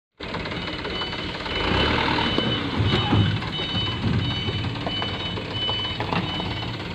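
Mitsubishi Fuso Colt Diesel dump truck's four-cylinder diesel engine running while manoeuvring, with its reversing alarm beeping at one steady high pitch, about three beeps every two seconds. The engine works harder around the middle as the truck climbs through the muddy turn.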